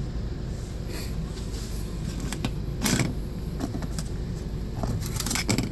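Scattered sharp metallic clicks and taps as a car door lock cylinder and small tools are handled, over a steady low rumble.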